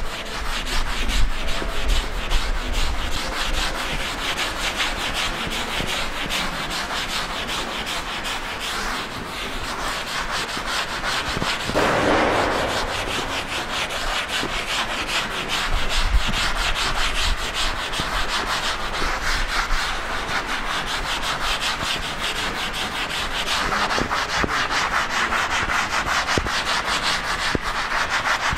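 Blackboard being wiped clean with an eraser: chalk scrubbed off the board in quick, continuous back-and-forth strokes.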